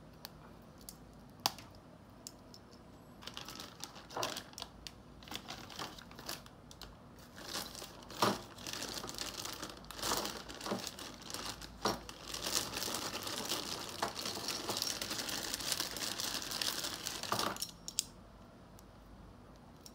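Clear plastic zip-lock bags crinkling and rustling as hands rummage through them, with a few sharp clicks at first. The crinkling grows dense and continuous in the second half, then stops a couple of seconds before the end.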